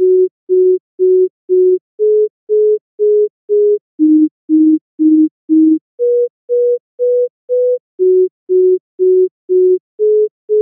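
Software sine-wave oscillator played by a 16-step sequencer: short, pure beeping notes, about two a second. Each pitch repeats four times before stepping to the next, cycling through four mid-range pitches.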